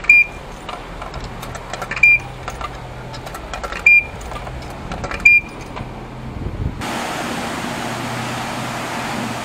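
Coin-operated self-serve car wash meter beeping once for each of four quarters dropped into its slot, with small clicks from the coins. About seven seconds in, the steady hiss of the high-pressure wash wand spraying starts.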